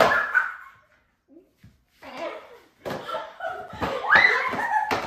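Girls laughing and shrieking, with a few sharp smacks in between; there is a short lull about a second in.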